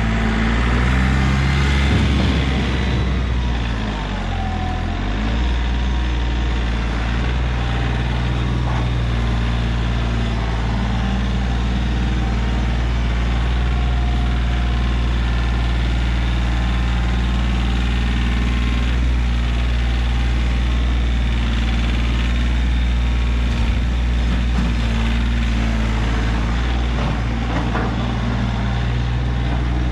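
Kioti CK3510 compact tractor's diesel engine running steadily as it works the front loader and drives. Its engine speed rises and falls for a few seconds near the start, then holds steady.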